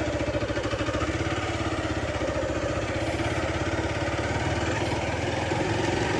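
Vehicle engine running steadily, its even firing pulses continuous throughout.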